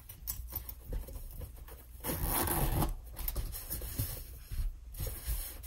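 Fabric organizer caddy being handled: its fabric and zippered pocket rubbing and rustling, with scattered light clicks and one louder rasp lasting about a second, about two seconds in.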